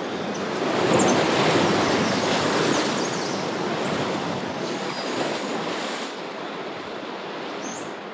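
Sea waves washing and breaking on the shore: a rushing surge that builds about a second in and slowly ebbs.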